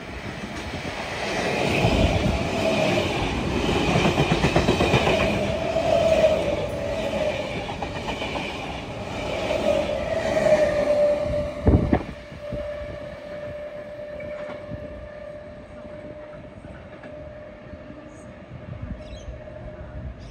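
A train running through the station, loud for about ten seconds, with a wavering high whine that turns into a steady tone. A sharp knock comes just past the middle, after which the rest of the train noise dies down and the whine lingers.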